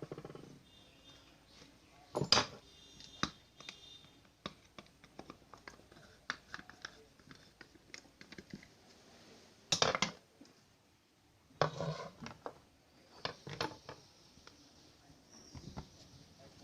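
Irregular metallic clinks, taps and knocks of tools and parts being handled during work on an electric hand planer, with the loudest knock about ten seconds in and others near two and twelve seconds in.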